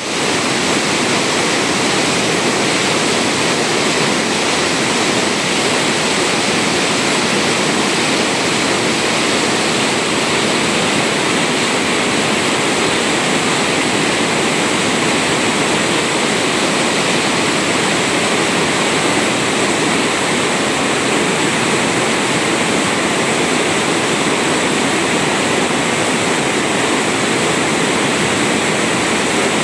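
Water flowing steadily down a waterfall, a constant babbling rush.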